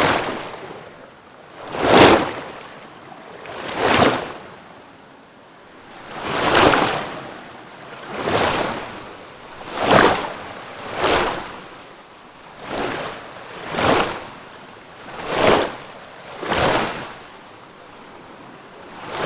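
Water lapping or sloshing in repeated surges, each swelling and falling away, about one every one and a half to two seconds.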